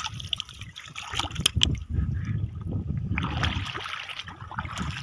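Shallow seawater splashing and trickling as someone wades and reaches through it over a reef flat, with a low rumble and a few sharp clicks in the middle.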